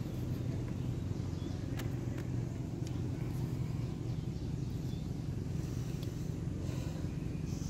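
Steady low hum of a motor running, with a few faint ticks over it.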